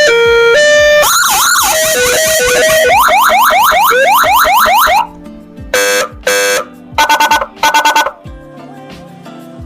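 X5 400 W electronic siren horn running through its tones. It plays a high-low two-tone alternation, a warbling wail, then fast rising yelps, three or so a second. About five seconds in it cuts off abruptly, followed by two short horn blasts and two quick runs of rapid pulses.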